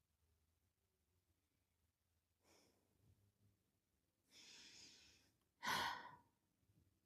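A person's breathing: a faint breath about two and a half seconds in, a longer breath about a second long a little past four seconds, then a short, louder sigh out near the end.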